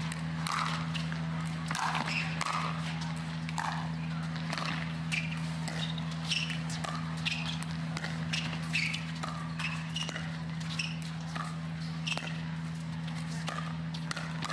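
Pickleball rally: composite paddles striking a hard plastic pickleball again and again, making sharp pops in quick succession, with footwork on the court and a steady low hum underneath.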